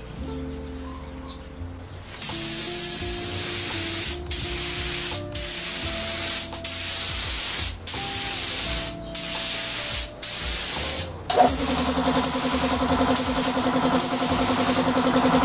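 Air spray gun hissing as it sprays clear coat, in passes of about a second each broken by brief stops of the trigger. From about two seconds in it carries on to the end. About two-thirds of the way in, a motor starts with a click and runs steadily underneath.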